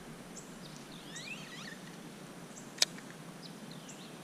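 Small birds chirping and calling, short quick notes on and off throughout. One sharp click about three seconds in.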